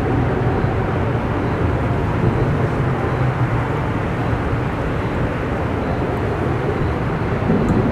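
Strong thunderstorm wind blowing, a steady low rumble with no let-up.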